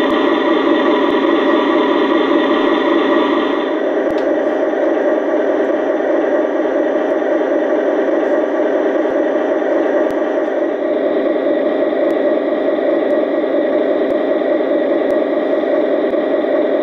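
Sound decoder of an LGB G-scale SD40 diesel model playing its diesel engine running sound, steady with a fast rhythmic chug. About four seconds in it thins and softens a little as its higher tones drop away.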